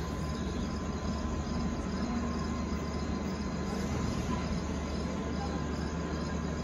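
Crickets chirping steadily, about three chirps a second, over a low, steady rumble from the passenger train's coaches rolling slowly past.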